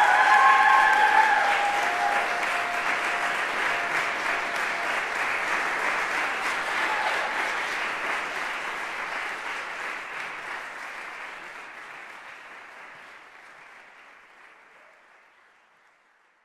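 Audience applauding in a concert hall, loudest in the first second or two, then fading away steadily to silence.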